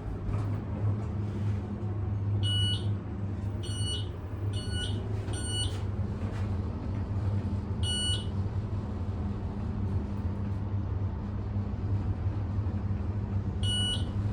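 Schindler-modernised elevator car travelling down with a steady low hum, its floor-passing beep sounding six times: four quick beeps close together, then one more, then a last one near the end.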